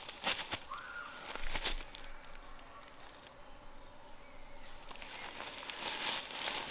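Steady hiss of rain with irregular close rustles and taps from handling things, and one brief arched squeak about a second in.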